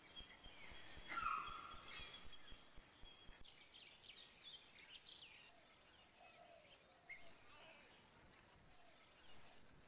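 Forest wildlife calls: scattered chirps and short gliding whistles, the loudest about a second in, over faint background hiss, with a thin steady high tone in the first few seconds.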